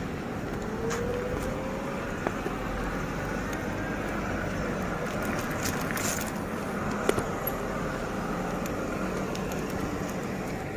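Steady rush of wind over the microphone and tyre noise while riding an electric scooter over paved road. A faint rising whine comes in about a second in, and a few light clicks follow.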